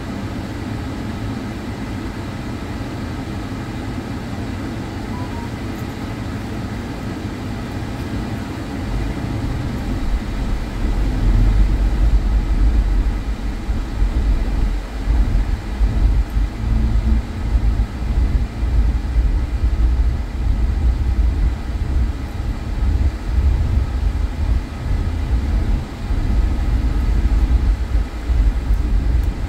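Road noise inside a moving car driving on a snow-covered street: engine and tyres making a steady noise, joined about nine seconds in by a louder, uneven low rumble.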